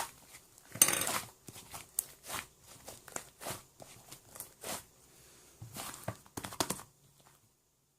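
Irregular crinkling and rustling: a string of short scratchy bursts, the loudest a little under a second in, that stops about seven seconds in.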